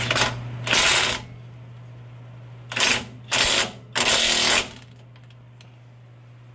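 Impact wrench run in several short bursts, tightening the nut on the lower rear shock bolt of a Ford Panther-platform car (Crown Victoria/Grand Marquis). The bursts come over about the first five seconds, the longest ones near the end.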